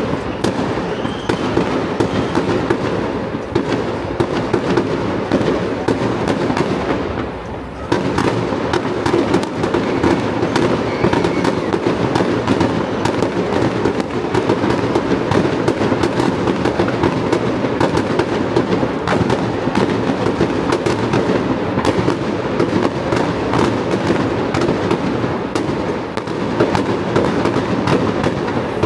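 Fireworks display: a dense, continuous barrage of bangs and crackles, with a brief lull about seven seconds in.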